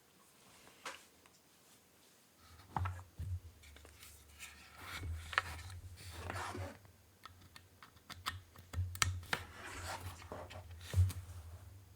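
Typing on a UTD 356 Mini mechanical keyboard with lubed Cherry Retool Black linear switches, an aluminium plate, O-ring gasket mounting and GMK keycaps: irregular keystroke clicks and quick runs of keypresses. A low steady hum sits under the typing from about two and a half seconds in.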